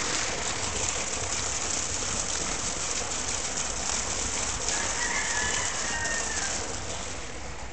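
Steady rushing hiss of running water, with a rooster crowing faintly for about two seconds near the middle.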